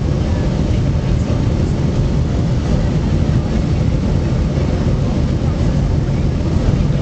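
Steady cabin noise of an airliner on approach to land: the jet engines and rushing air heard from inside the passenger cabin, deep and unbroken.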